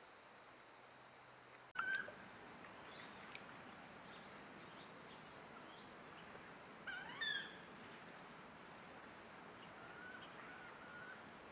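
Birds calling: two louder short calls, about two seconds in and again about seven seconds in, with fainter scattered chirps between and after. Under them runs the trail camera's steady hiss.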